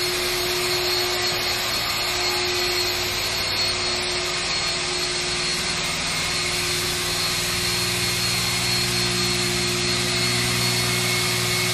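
A motor-driven machine running steadily: a constant rushing noise with a steady whine over it. A lower hum joins about six to eight seconds in.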